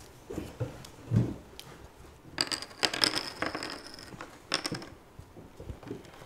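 Poker chips clicking and clattering against each other on a table as bets are tossed in, in two clusters of clicks, after a dull thump about a second in.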